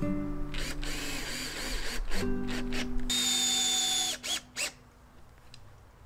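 Handheld power drill working on a wooden frame beam: the motor spins up and down in short runs, holds a steady high whine for about a second, then gives two short bursts.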